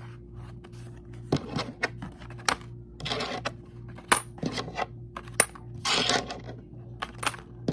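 Coins clinking inside a folded paper piggy bank as it is handled, with a string of sharp metallic clinks and a couple of short rattling stretches.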